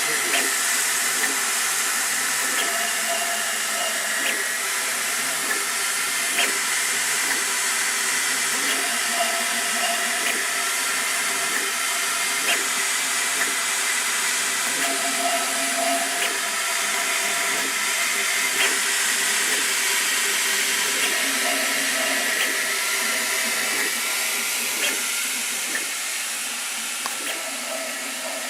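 Sovol SV08 3D printer running: a steady fan hiss with motor tones that fade in and out and shift in pitch, and a faint tick every few seconds.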